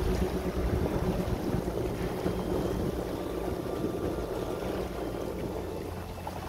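Outboard motor of a tour launch running steadily, with water and wind noise, a little quieter near the end.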